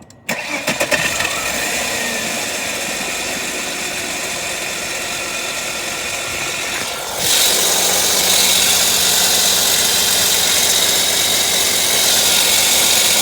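1998 Volvo V90 engine cranking briefly and catching, then idling with a steady high-pitched screech from the camshaft area, which becomes much louder about seven seconds in. After topping up low oil, the owner thinks it may be a valve.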